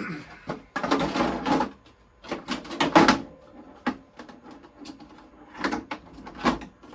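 Handling noises: rustling scrapes and sharp knocks that come in three short bursts, about a second in, around three seconds in, and again near the end.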